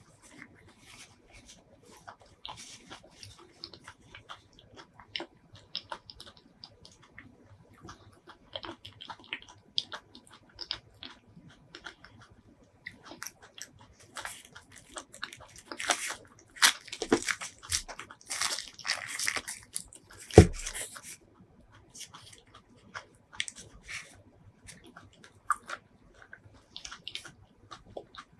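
Paper wrapping on pieces of durian flesh crinkling and rustling as fingers handle it and peel it back: scattered crackles that thicken into a dense, loud stretch over several seconds after the middle. There is one sharp knock about twenty seconds in.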